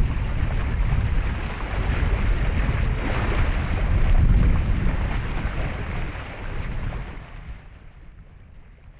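Wind rumbling on the microphone over small waves washing against the rocky lakeshore; it all fades out near the end.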